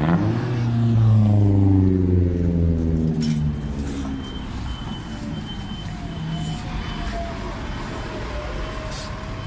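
New Flyer XDE60 articulated diesel-hybrid bus slowing as it pulls in to the stop, its drive note falling steadily in pitch over the first three seconds or so, then settling into a lower, steady running rumble with a faint thin whine.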